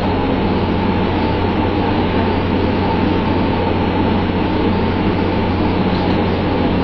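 Boat engine running steadily, a loud, even low drone with no change in speed.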